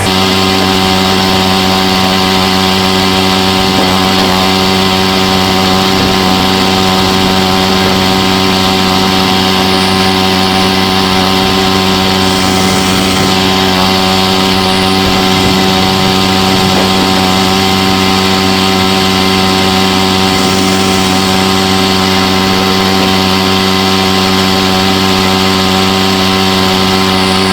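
Walk-behind tractor's engine running at a steady, unchanging speed.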